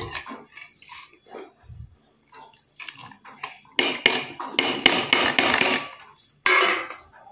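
Steel utensils clinking: a few light taps of a steel spoon in a steel bowl, then a burst of clattering about four seconds in as chopped fruit is tipped off a steel plate into the bowl, scraping against its rim, and a shorter clatter near the end.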